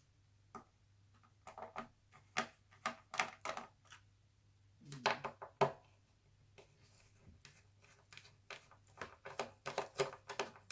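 Small screwdriver clicking and tapping in the screw heads of a laptop chassis as screws are undone and lifted out, a run of irregular clicks in several clusters.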